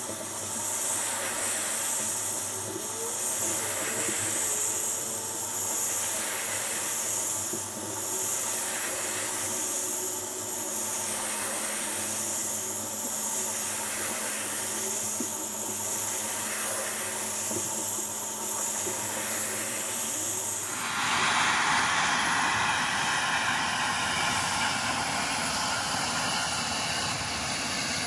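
Steady hiss of a Torgos T35 high-pressure water surface cleaner with a 35 cm PRO-F nozzle, spraying over asphalt, swelling gently every couple of seconds. About 21 seconds in it turns suddenly louder and fuller.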